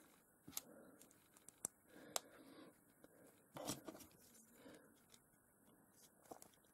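Faint clicks, taps and light rustling of small plastic building bricks being handled and fitted together, a few separate clicks spread over several seconds.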